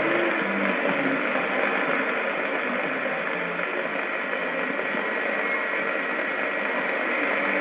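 AM communications receiver tuned to a weak mediumwave signal on 1652 kHz, giving a steady static hiss with faint tones showing through it for the first few seconds.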